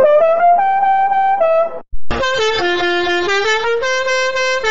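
Musical bus horn playing a tune note by note. It breaks off about two seconds in and starts again in a differently processed version with a brighter sound.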